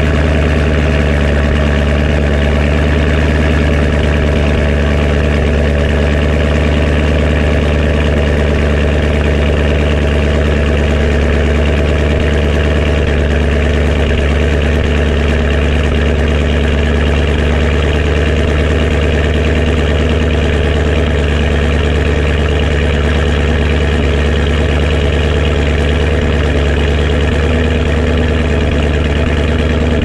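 2016 Chevrolet Camaro SS's 6.2-litre LT1 V8 idling steadily through its stock exhaust, heard at the tailpipes.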